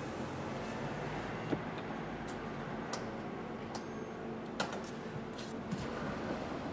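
Steady low hum heard inside a stationary car's cabin in an underground parking garage, with a scattered series of light clicks and ticks.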